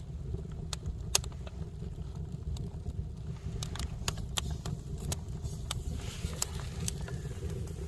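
Wood fire burning in a small steel camping stove, with scattered sharp crackles and pops over a steady low rumble.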